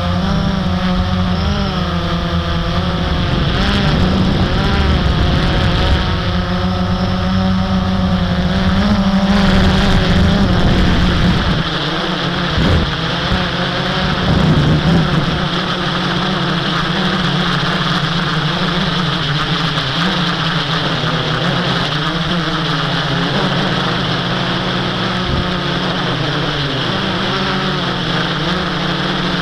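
Blade 350 QX quadcopter's electric motors and propellers buzzing in flight, their pitch wavering up and down as the throttle changes. A heavy low rumble runs under it for the first ten seconds or so, then drops away.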